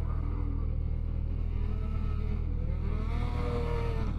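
Snowmobile engine revving as the sled spins up a snowdrift, its pitch rising and falling, over a steady low hum.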